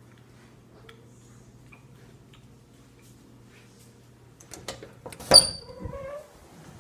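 Metal doorknob and latch of a glass French door clicking and rattling as a hand grabs and turns it. The loudest is one sharp metallic click about five seconds in that rings briefly. Before that there is only a faint steady low hum.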